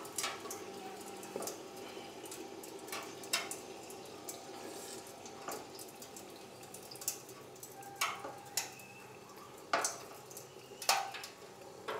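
Red-hot 1084 steel knife blade in a pot of quench oil: the oil sizzles steadily while about a dozen sharp pings sound at irregular moments. The pinging is the coating of Satanite and anti-scaling compound cracking off the blade as the quench hardens it, not the steel itself.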